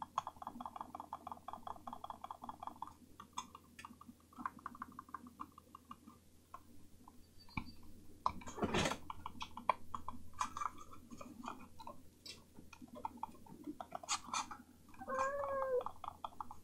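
Logitech G305 gaming mouse buttons, refitted with Kailh silent switches, clicked over and over with a muted clicking: a fast, even run of clicks, then scattered clicks. A brief noisy burst comes a little past halfway, and a short pitched call that rises and falls comes near the end.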